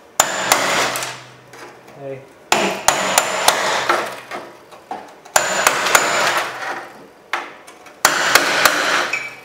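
Hammer driving a steel cold chisel against a rust-seized retaining ring on a truck bumper's spare-tire tube, in four runs of rapid blows, each one to two seconds long, with a metallic ring. The ring is too rusted to come off whole and is being broken off.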